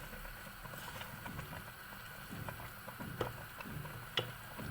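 Spoon stirring thick, chunky strawberry jam in a pot, a low squelching churn with a few light clicks of the spoon against the pot late on.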